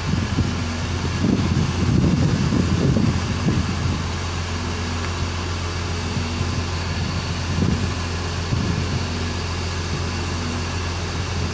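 Fishing boat's engine running with a steady low drone, overlaid by irregular low rumbles that swell about two seconds in and again near eight seconds.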